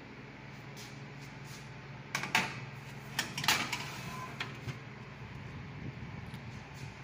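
Aluminium baking pan knocking and scraping onto a wire oven rack as it is pushed in, with a cluster of sharp metallic clacks about two seconds in and again about three and a half seconds in, over a steady low hum.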